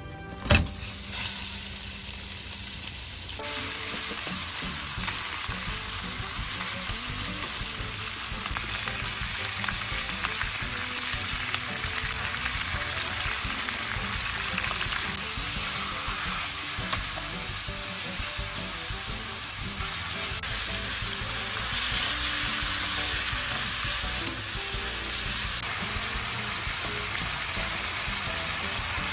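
Sliced pork belly frying in a stainless steel wok, a steady sizzle as its fat renders, with a sharp knock about half a second in and a few small clicks later.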